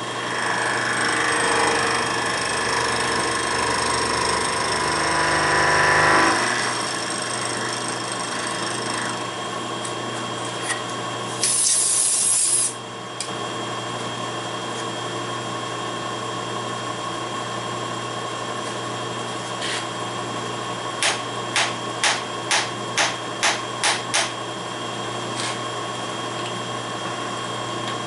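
Milling machine's face mill cutting into a metal block for about six seconds, then the cut ends abruptly and the spindle runs on with a steady hum. A brief loud hiss comes about twelve seconds in, and a quick run of about eight clicks comes a little after twenty seconds.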